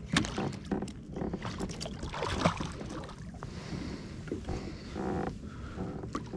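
Hooked shark splashing at the water's surface beside a kayak, mixed with many short knocks and clicks of fishing gear and the hull, one a little louder about halfway through.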